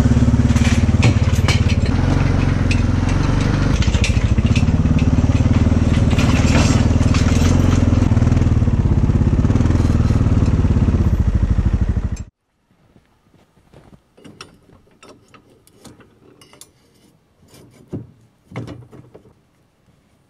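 ATV engine running steadily while the quad is ridden, heard from on the machine; it breaks off suddenly about twelve seconds in. Scattered quieter clicks and knocks follow.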